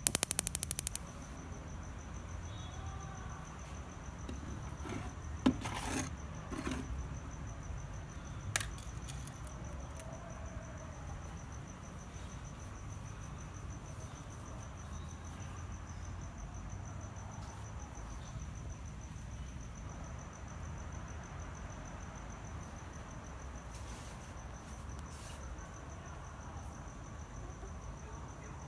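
A steady, high-pitched insect trill over a low background rumble. A quick run of clicks comes in the first second, and a few sharp knocks follow a few seconds later.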